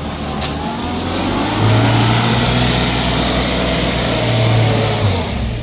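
Car engine revving, its pitch rising and then easing back down over a few seconds.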